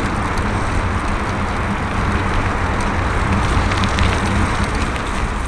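Steady rushing wind and road noise from a bicycle riding along a paved path, with a low rumble underneath.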